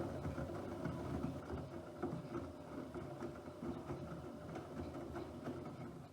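Bosch Aquasensor WFP3231 washing machine's drum turning in one wash-motion burst: an uneven mechanical rumble that starts at once and stops near the end.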